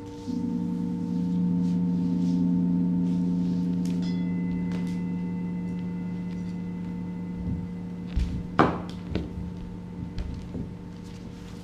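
Singing bowls ringing with long steady tones; a deep bowl tone struck just after the start swells and then slowly fades. Later come a few soft knocks and one loud thud.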